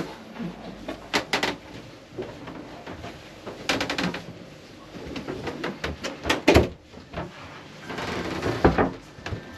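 Scattered clicks and knocks in a small cabin room, in short clusters about a second, four seconds and six and a half seconds in: footsteps and fittings being handled.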